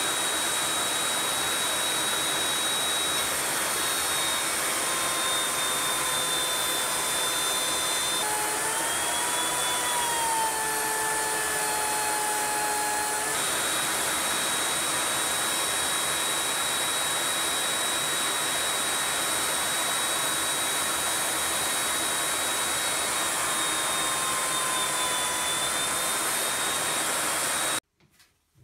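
Ryobi MTR-42 trim router running at full speed in a router table, with a vacuum on the dust hose, giving a steady high whine. About eight seconds in the pitch drops and wavers for some five seconds as the bit cuts a box-joint notch in the board, then it steadies again. The sound cuts off suddenly near the end.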